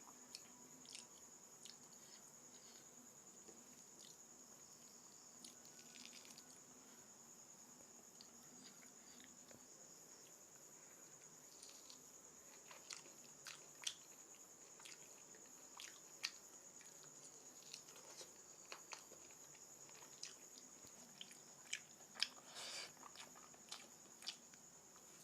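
Faint chewing and lip-smacking of someone eating mutton curry with rice. Scattered short mouth clicks come more often in the second half.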